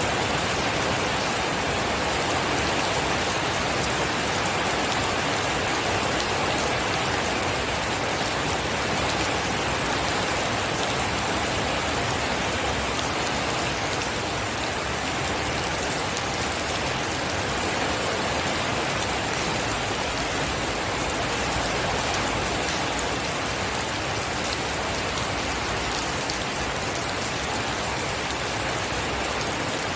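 Steady rain falling, with fine scattered patter of drops on a surface.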